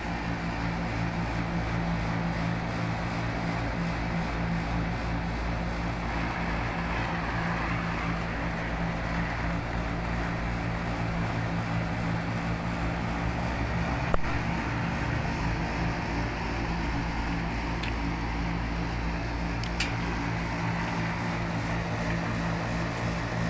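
Steady drone of running plant-room machinery: an even low hum under a broad rushing noise, with one sharp click about fourteen seconds in.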